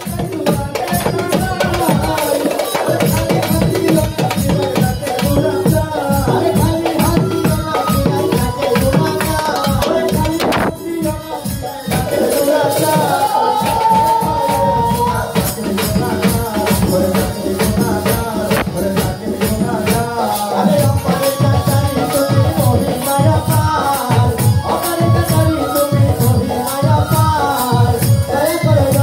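Live Bengali folk music: a man singing into a microphone over a fast, steady shaken-percussion rhythm with drums and melodic accompaniment. The low drum beats grow heavier about two-thirds of the way through.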